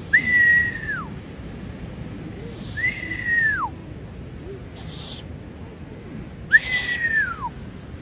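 Owl chick calling three times, a few seconds apart: each call a drawn-out whistle held level and then falling sharply in pitch at the end.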